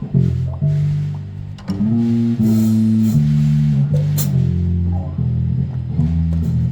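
Rock music with electric guitar and bass guitar, the bass holding low notes that change every second or so.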